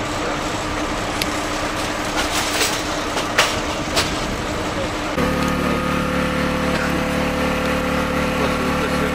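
Engines running steadily, with a few sharp clicks and knocks in the first half. About five seconds in, the sound cuts to a louder, even engine drone.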